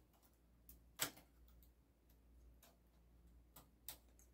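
A few faint, scattered clicks of metal latch needles being pulled and worked by hand on a knitting machine's needle bed. The sharpest click comes about a second in.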